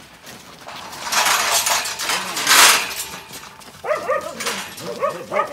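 Cattle-herding dogs barking and yipping in a quick run of short calls from about four seconds in. Before that come two loud bursts of hissing noise, the louder one about two and a half seconds in.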